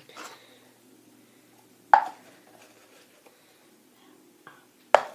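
Sticky slime handled by hand: two sharp smacks, one about two seconds in and one near the end, with faint handling noise between.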